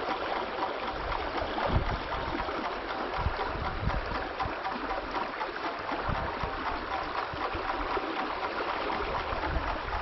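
Mountain stream running: a steady rush of flowing water, with irregular low thuds underneath.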